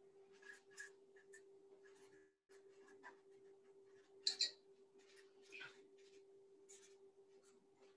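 Faint scraping strokes and light taps of a butter knife working butter onto slices of pan dulce and setting them down, the loudest about four seconds in, over a steady low hum.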